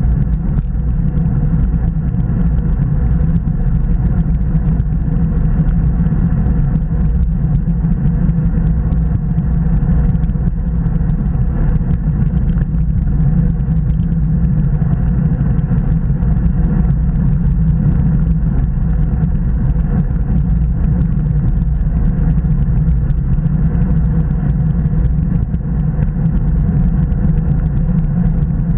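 Wind buffeting the microphone of a bike-mounted action camera while riding a road bike at about 30 km/h in a bunch: a steady, loud, low rumble, mixed with tyre and road noise.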